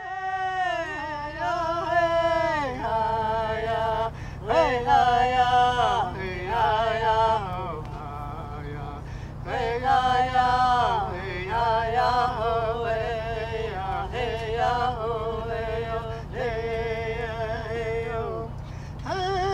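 Background music: a chant sung in long held notes that slide from one pitch to the next, over a steady low hum.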